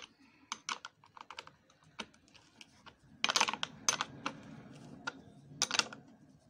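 A 13 mm metal spanner turning the nut that clamps the guide bar of an electric chainsaw, making a run of irregular small metallic clicks. The clicks come thicker about three seconds in and again near the end.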